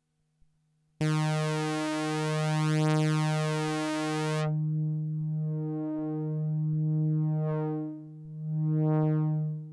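Korg ARP Odyssey analogue synthesizer holding a single low, buzzy note that comes in about a second in. A few seconds later the high end cuts off suddenly, and the remaining tone pulses slowly, about once a second, dipping and swelling back near the end.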